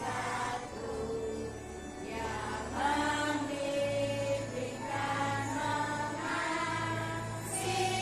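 Young children's choir singing together, a line of held notes that step up and down in pitch.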